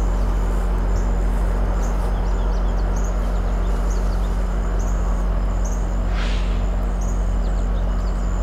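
Outdoor background: a steady low hum and hiss, with small birds chirping now and then high above it.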